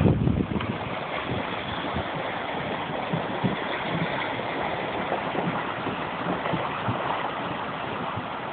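A river running high and choked with broken ice floes: a steady rush of moving water and slush, with scattered knocks of ice chunks bumping together. A louder low thump comes right at the start.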